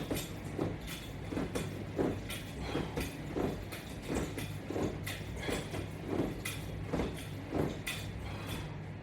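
Rhythmic sounds of a person doing strap-anchored sit-ups, about two a second, over a steady low hum.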